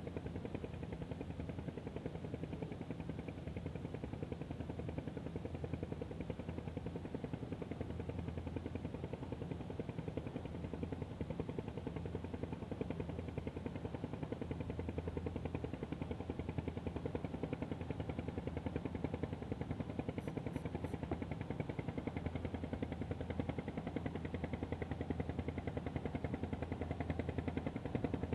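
Steady low mechanical hum with a fast, even flutter, like a motor running without change.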